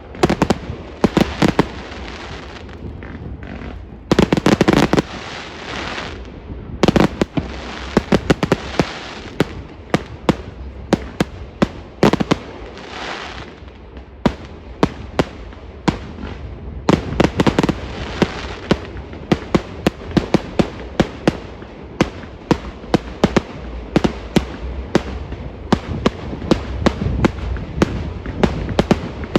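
Fireworks going off in quick succession: dozens of sharp bangs from bursting shells, with swells of crackle in between.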